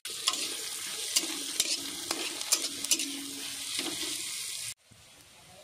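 Sliced onions sizzling as they fry in hot oil in a metal kadai, with a metal spatula scraping and clicking against the pan as they are stirred. About three-quarters of the way through the sound drops abruptly to a much fainter level.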